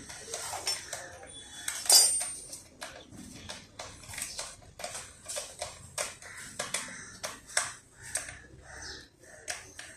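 Metal hand tools and motorcycle parts clinking and tapping in irregular knocks during steering-head and front-fork work, with one louder ringing metallic strike about two seconds in.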